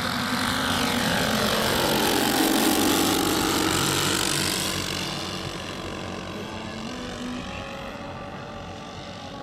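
Giant-scale radio-controlled B-17 model's four propeller engines on a low pass. The drone swells to its loudest about three seconds in, drops in pitch as the plane goes by, then fades as it climbs away.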